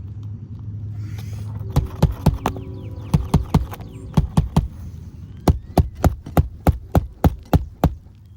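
Hammer driving roofing nails to fasten a replacement asphalt shingle: about twenty sharp blows, first in quick runs of three or four, then a steadier run of about three a second, over a steady low hum. The nails are not holding well, which the roofer puts down to odd roof decking.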